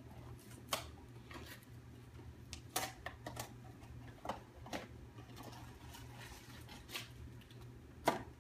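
A cardboard blind box being opened by hand: irregular crinkling, tearing and clicking of the packaging, with a sharper click a little after eight seconds.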